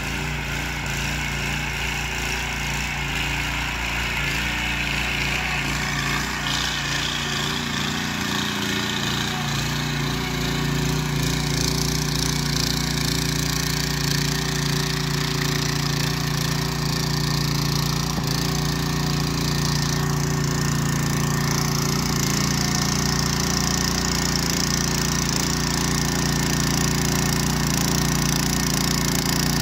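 Ruris 751 KS walk-behind motor cultivator with eight tines, its small engine running steadily under load as it tills the soil. It gets slightly louder as it comes closer.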